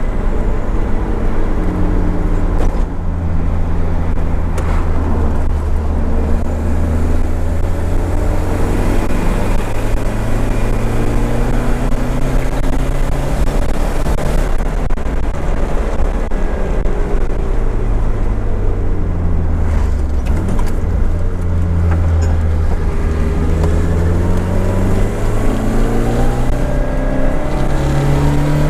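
Nissan 200SX S13's CA18DET turbocharged 1.8-litre four-cylinder engine heard onboard while driving, its pitch rising and falling several times as the car accelerates and lifts off.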